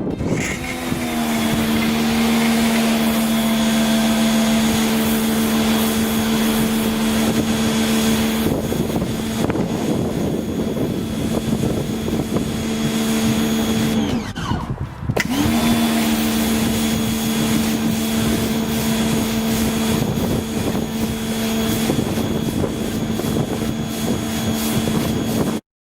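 Electric pressure washer's motor and pump starting up and running at a steady hum, with a rougher rushing noise over it from about a third of the way in. Around the middle it winds down to a stop, then starts up again about a second later.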